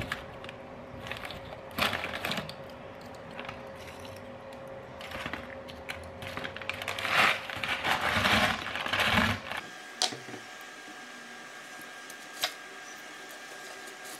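Foil snack bag crinkling while crisp corn chips rustle and crunch as they are tipped out and crushed by hand, with the busiest crackling about seven to nine seconds in. After that it goes quieter, with only a couple of sharp clicks.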